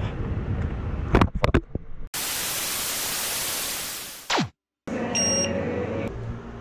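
A few sharp knocks, then a sudden burst of white-noise static lasting about two seconds. The static fades into a quick falling tone, cuts to dead silence, and is followed by a short high beep: an added static sound effect.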